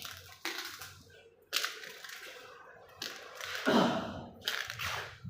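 A handful of sharp knocks and clacks, about five over a few seconds, each dying away quickly, with a fuller, louder rustling thump just under a second after the fourth.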